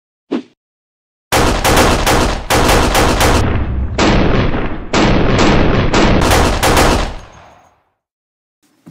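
Rapid gunshot sound effects, shot after shot in several bursts for about six seconds, then a tail that fades out.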